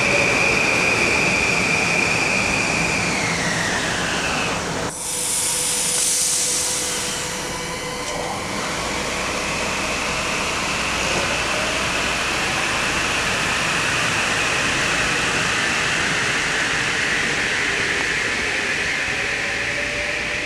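Metro-North electric multiple-unit train, its motors giving a steady high whine that falls in pitch over the first few seconds. After a sudden break about five seconds in comes a brief loud hiss, then the motor whine climbs slowly as the train accelerates away.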